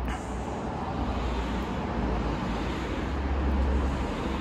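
Steady outdoor background noise: a low rumble under an even hiss that swells slightly about three seconds in.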